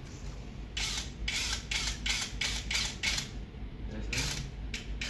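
Cordless drill working against a wall, giving a run of short rasping bursts about four a second, with a brief pause before it starts again near the end.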